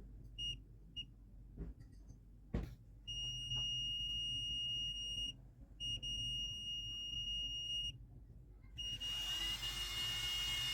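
Digital multimeter's continuity beeper: two short beeps, then long steady high beeps of about two seconds each with short gaps between them, as the probes find a low-resistance path between the points they touch. A click comes between the short beeps and the long ones, and a hiss comes up under the last beep near the end.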